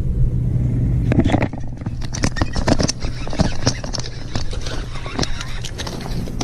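A hooked fish thrashing and splashing at the water's surface while being reeled in. It is a rapid, irregular run of splashes that starts about a second in, over a steady low hum.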